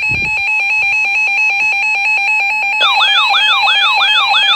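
Emergency Alert System attention signal: a loud, steady alarm tone. About three seconds in, a warbling siren-like tone joins it, falling in pitch about three times a second.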